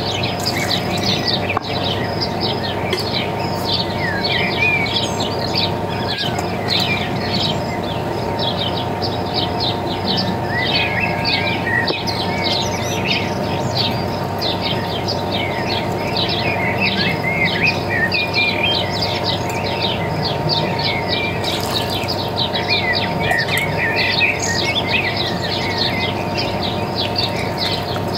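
Birds chirping and trilling over steady insect-like buzzing and a constant hum, as one continuous nature ambience.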